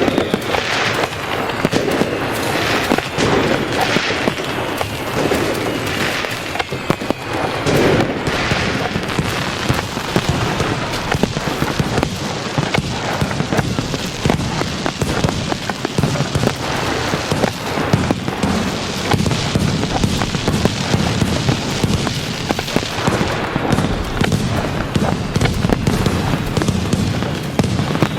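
Fireworks display: a dense, continuous barrage of bangs and crackling, with whistling shells falling in pitch near the start.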